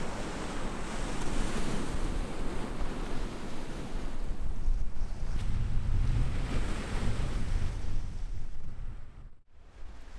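Wind buffeting the microphone over the wash of sea surf, with a heavy low rumble. The sound drops out for a moment about nine seconds in, then returns.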